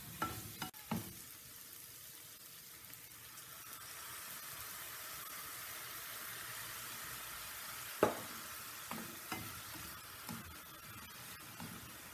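Sliced bitter gourd sizzling in a hot non-stick pan while being stir-fried with a plastic spatula, which knocks and scrapes against the pan several times, the loudest knock about two-thirds of the way through. The sizzle grows louder around the middle as a little water is poured in.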